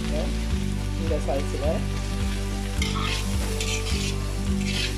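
Julienned carrots and onion sizzling as they stir-fry in a metal pan, with a metal spatula scraping and tossing them in four quick strokes in the second half.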